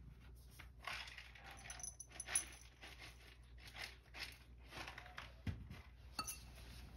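Faint, scattered small clicks and light rustles, irregular and about one every half second to a second, typical of a dish and food being handled, with a faint high tone briefly about two seconds in.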